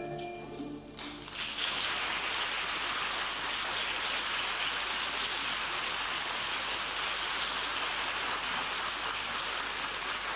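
The last notes of the music fade out, and about a second in an audience starts applauding, a dense, steady clapping that holds to the end.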